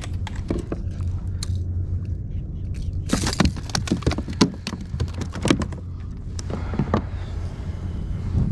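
Clicks, knocks and rattles of a sea trout and a treble-hooked jerk bait being handled on a plastic kayak deck as the hooks are worked out of the fish, with a dense flurry of rattling about three seconds in.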